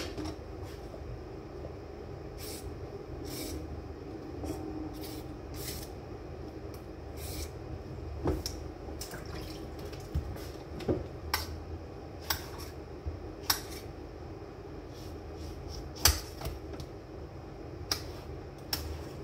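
Kitchen knife cutting a cucumber: irregular crisp cuts, with a few louder knocks of the blade on the board, over a steady background hum.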